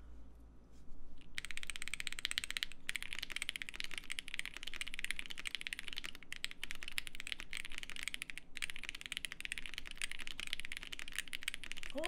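Fast touch typing on a Bubble75 prototype mechanical keyboard with Pinoko switches and heavy foam dampening: a dense stream of key clacks, starting about a second in, with a few short pauses.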